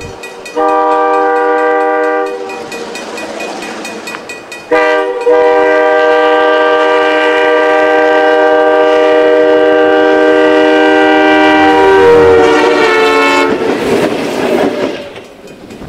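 Horn of a railway snowplow train sounding a short blast, then a long blast of about eight seconds, several tones together; its pitch drops slightly near the end. A rushing noise fills the gaps and follows the long blast as the plow goes by.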